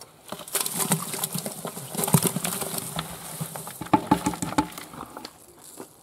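Bucket of dry, old chicken manure poured into an empty 200-litre steel barrel: a rustling pour with lumps knocking against the bottom and sides, lasting about five seconds and then dying away.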